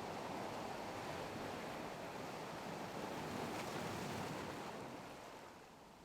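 Steady rushing of sea and wind, fading away near the end.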